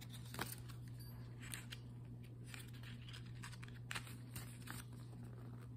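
Faint rustles and light clicks of a small paper booklet being handled and its pages turned, a few scattered through the pause, over a steady low hum.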